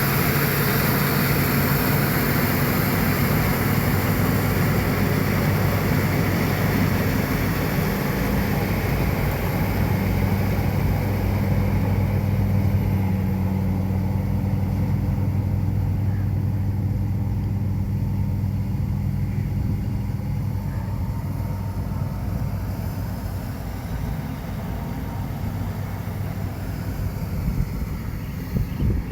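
Kartar combine harvester running steadily while harvesting corn: a constant engine drone with a high mechanical hiss that fades over the second half.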